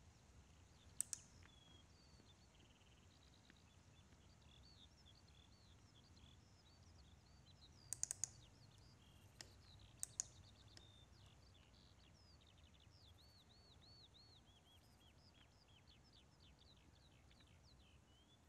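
Computer mouse clicks: a double click about a second in, a quick triple click a little before the middle, and a few single clicks shortly after. Behind them, faint birdsong chirps on and off throughout.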